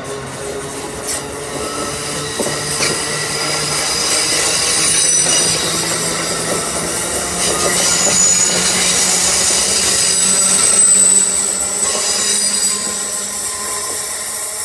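Amtrak Northeast Regional's Amfleet passenger coaches rolling past at speed: a steady rush of wheels on rail with high-pitched wheel squeal and a low hum. It is loudest about eleven seconds in, then eases as the last car goes by.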